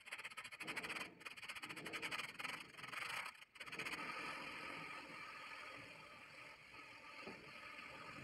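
Tyre buffing: an electric buffing machine's rasp grinds rubber off a tyre as it turns, stripping the old tread to prepare the casing for retreading. On the lugged tractor tyre the scraping pulses rapidly as the lugs pass the rasp. After a break about three and a half seconds in, the grinding on a smooth casing runs steadier.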